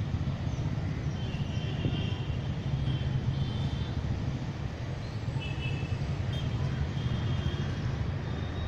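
Steady low rumble, like traffic or an engine running nearby, with short high bird chirps scattered through it.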